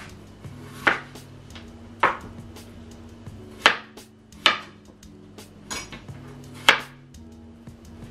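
A chef's knife chopping peeled raw potatoes on a plastic cutting board: about five sharp knife strikes against the board, irregularly spaced a second or more apart, with soft background music.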